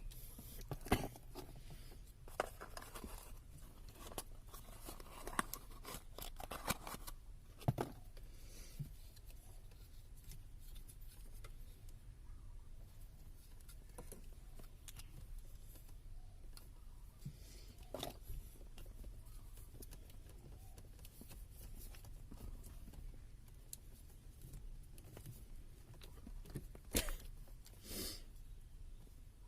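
Faint, scattered clicks and rustles of handling, with a few sharper clicks about 8 s in, near the middle and near the end, over a low steady hum.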